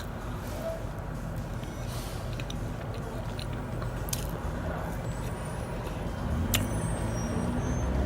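Low, steady rumble of road traffic, swelling near the end as a vehicle draws closer, with scattered small clicks and the chewing of someone eating.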